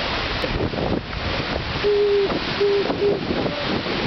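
Steady rushing noise of wind and the river rapids far below. About two seconds in come three short, low, steady-pitched tones, the first a little longer than the others.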